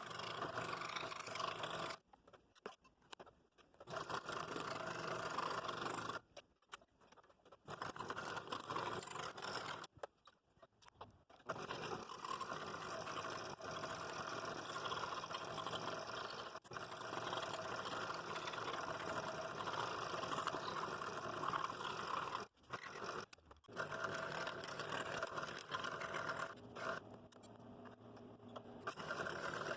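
Scroll saw running, its blade cutting through 3/8-inch walnut. The sound is steady, with several sudden breaks of a second or two where it stops.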